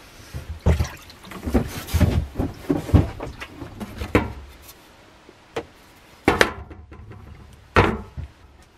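Liquid sloshing and splashing as gloved hands work in a plastic tub of dark soaking bath holding an axe head. This is followed by a few separate sharp wooden knocks, the last the loudest, as an axe handle and a wooden block are set down on a workbench.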